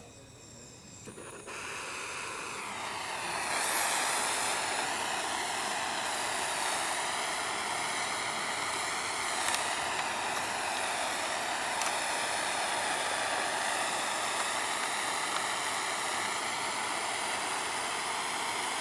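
Jeweller's gas soldering torch flame hissing steadily as it heats the solder joins on a twisted-wire ring blank. It comes in about a second and a half in and builds over the next two seconds, then holds steady.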